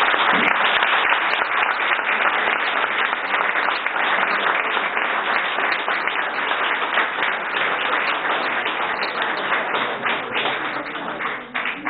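Audience applause, many hands clapping steadily, thinning out and dying away near the end.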